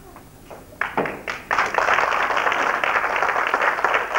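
Theatre audience applauding: a few scattered claps about a second in, then quickly swelling into dense, steady applause from the whole house.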